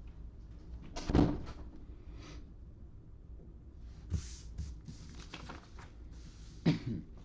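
Cardboard box of trading cards being opened and handled: a loud rustling scrape about a second in, more rustling from about four seconds, and a sharp bump near the end.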